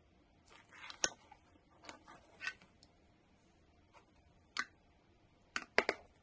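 Long-nose pliers clicking and handling thin wire: irregular sharp clicks with a soft rustle, and three quick clicks near the end.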